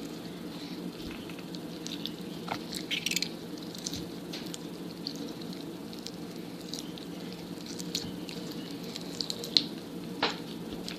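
Slime being worked: scattered small sticky clicks and squelches, a few louder ones near the end, over a steady low hum.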